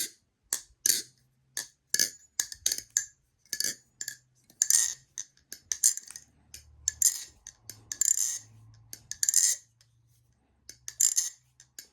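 A metal balisong (butterfly knife) being flipped: its handles swing around the pivots and clack shut against each other and the blade, giving an irregular run of sharp metallic clicks with brief ringing. Denser rattling clusters come about five, eight and nine and a half seconds in.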